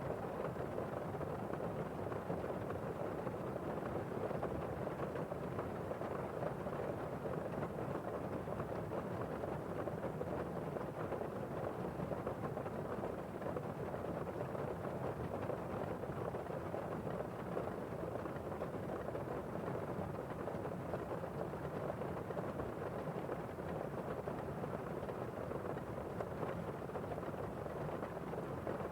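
Heavy rain heard from indoors: a steady, muffled wash of rainfall with the high end dulled by the walls, no distinct drops or thunder claps.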